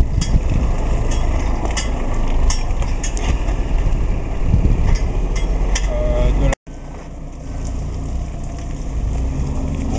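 Engine of the vehicle towing a boat on a hydraulic boat trailer, running steadily, with scattered clicks and rattles. The sound drops out for an instant about six and a half seconds in, then goes on quieter and steadier.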